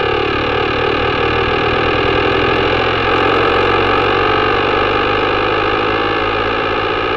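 Modular software-synth drone: a dense, steady stack of raspy sustained tones, with slow swirling sweeps running through it from a rotary-speaker effect.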